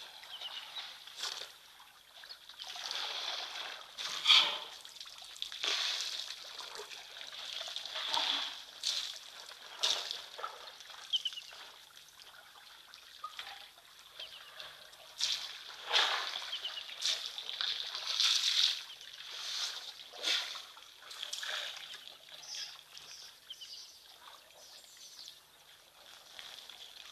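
Herd of African elephants drinking at a waterhole: irregular splashing and trickling of water as trunks draw it up and spill it, in uneven bursts of varying loudness.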